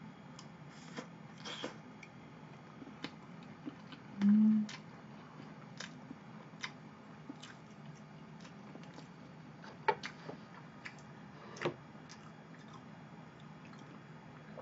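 Close mouth sounds of a person eating soft chocolate cream cake: quiet chewing with scattered small clicks and lip smacks. About four seconds in there is a short low hummed "mm", the loudest sound.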